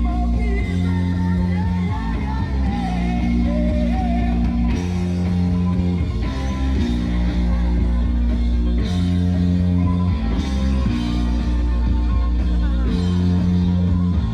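Rock music with a singing voice over a low bass part that changes note every few seconds.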